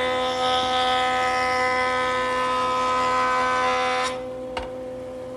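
Power saw cutting through wood with a steady whine. The cut ends about four seconds in, leaving the motor humming on, and a single click follows shortly after.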